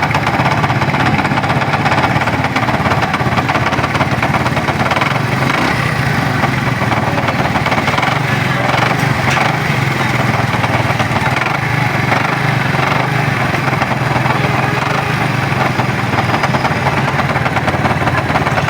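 100 cc motorcycle engine running steadily with a rattling noise from the clutch box, the sign of a clutch fault: worn clutch and pressure plates.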